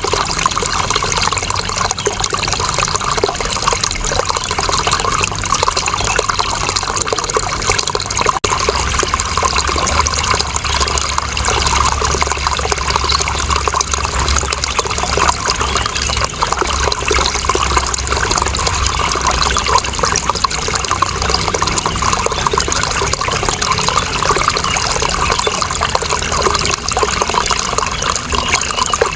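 Running water flowing steadily in a continuous rush, with a momentary break about eight seconds in.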